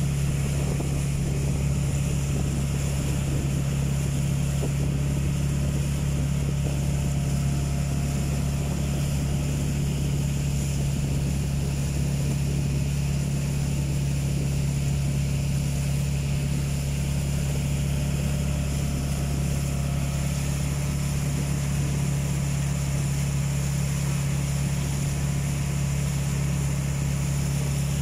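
Engine of a small wooden motorboat running steadily under way, a constant low drone with no change in speed, over the wash of water and wind.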